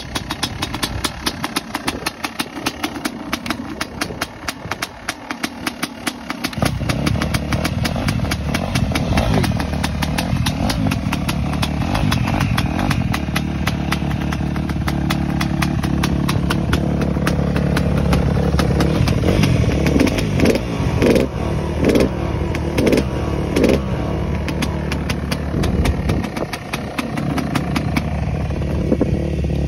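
Freshly rebuilt Yamaha YZ250 two-stroke single-cylinder engine running after its top-end rebuild, with a fast, even firing note. About six seconds in the sound grows louder and fuller. Around two-thirds of the way through there are several short revs.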